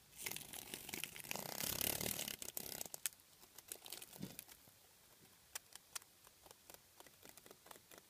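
Dry crackling and rustling of a cicada struggling as a tarantula seizes it. The noise is dense for about the first three seconds, then thins to scattered sharp clicks.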